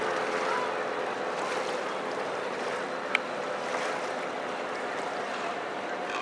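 Steady wash of water and wind around a sailboat under way, with a faint steady engine hum and a single sharp click about three seconds in.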